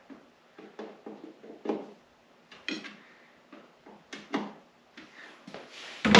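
Irregular clicks and knocks of snowmobile parts being handled and fitted during reassembly, with a louder, heavier knock near the end.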